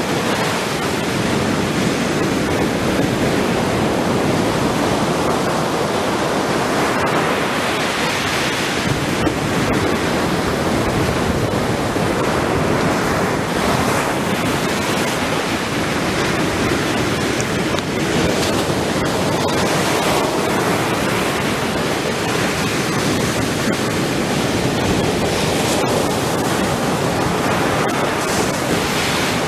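Ocean surf on a sandy beach: a continuous rush of breaking waves that swells now and then.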